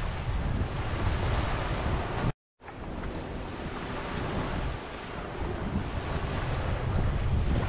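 A steady rushing noise, heaviest in the low rumble, that cuts out completely for a moment about two and a half seconds in and then resumes.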